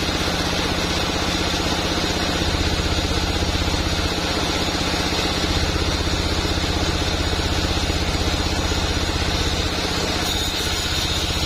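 A sawmill's engine running steadily with a fast, even pulse.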